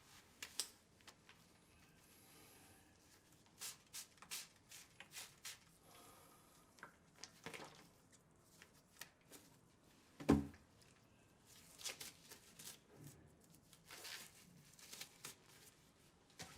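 Scattered small handling noises: soft clicks, taps and rustles, with one louder thump about ten seconds in.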